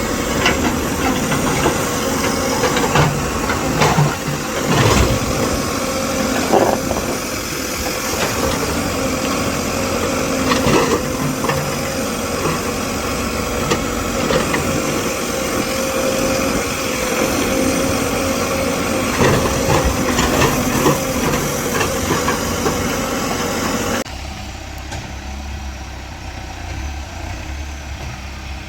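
The diesel engine of a tractor cutting a road runs steadily, with scattered knocks and clanks over it. About 24 seconds in the sound drops suddenly to a quieter engine hum.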